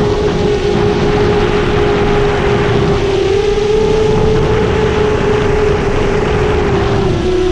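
A 7-inch FPV quadcopter's brushless motors and triblade propellers make a steady high hum, with a dense rush of noise underneath. The pitch lifts slightly about three seconds in and drops near the end as the throttle changes.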